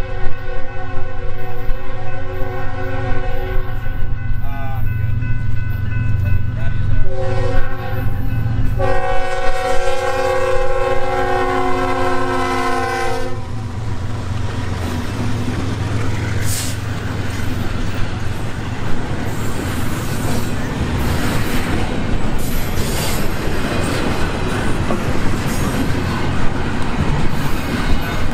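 BNSF freight locomotives sound their multi-note air horn in several blasts, the last one long, ending about 13 seconds in. The locomotives then pass close by, engines and wheels rumbling, and the double-stacked intermodal well cars follow with steady clickety-clack and rattling of wheels on the rails.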